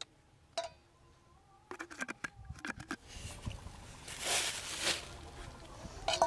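A metal spoon clinks and scrapes against a stainless steel bowl while cooking ingredients are added. Partway through there is a soft hiss as salt is sprinkled in, and a final ringing clink near the end.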